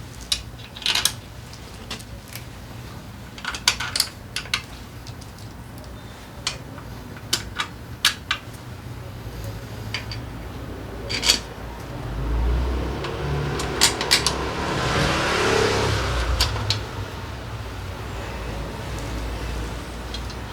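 Metal tools and drivetrain parts clinking and clattering in separate sharp strikes, over a low steady hum. From about twelve seconds in a louder whirring rush swells and fades over several seconds.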